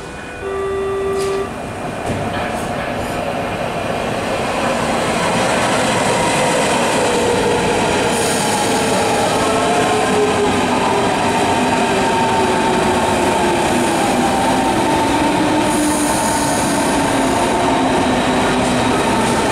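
Berlin S-Bahn electric train pulling into the platform: the motor whine falls slowly in pitch as it brakes, over wheel noise and squeal, and grows louder over the first few seconds. A short horn note sounds about half a second in.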